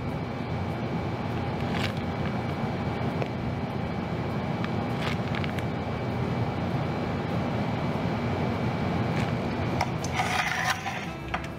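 Steady background machine noise, with a few faint clicks. Near the end comes a short crinkle of the plastic piping bag as it is handled.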